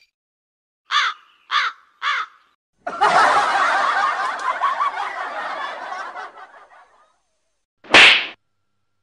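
Edited-in comedy sound effects over dead silence: three short squeaky laugh-like calls about half a second apart, then a noisy warbling stretch of several seconds that fades out, and one sharp loud burst near the end.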